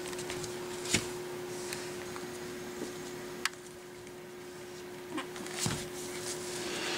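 Pekingese puppies moving about and playing, with a few sharp clicks and knocks about a second in, in the middle and near the end, and soft scuffling between. A steady hum runs underneath.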